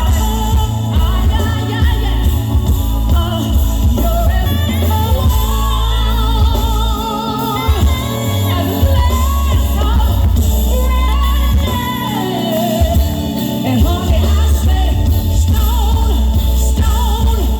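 Live music with a singer over a band with heavy bass, the singing voice wavering with vibrato and held notes.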